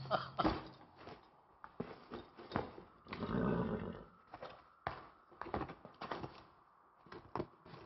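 A saddle and rope being handled, giving scattered knocks and clicks, with a horse snorting for about a second near the middle.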